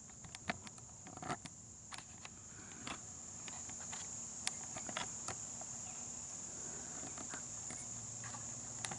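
A steady, high, unbroken chorus of insects, typical of crickets, with scattered light clicks and knocks of the camcorder being handled.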